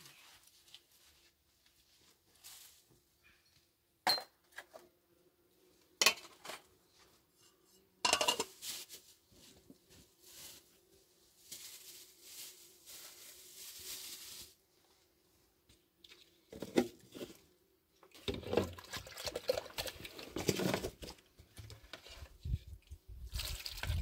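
Metal pots, dishes and utensils clinking and scraping as they are handled. There are two sharp knocks early, a scraping stretch through the middle, and busier clattering in the last few seconds.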